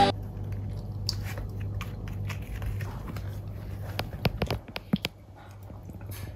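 Maltipoo puppy chewing and crunching dry dog food, with scattered sharp crunches that bunch up loudest around four to five seconds in.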